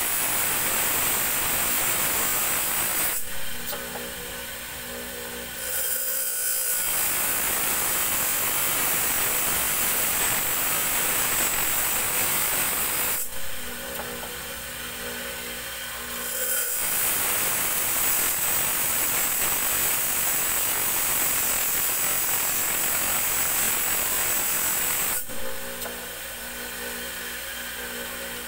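A steel tari blade blank being ground freehand against a large spinning grinding wheel, giving a steady harsh hiss of grinding in long stretches. The hiss drops out three times, for about three seconds each, leaving the lower hum of the wheel running free while the blade is lifted off.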